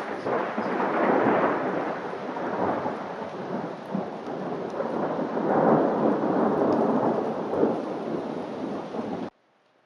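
Thunderstorm: rolling thunder over steady heavy rain, swelling about a second in and again past the middle, then cutting off abruptly near the end.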